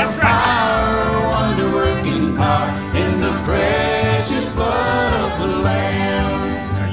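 A voice singing a song over instrumental accompaniment, with bass notes moving underneath.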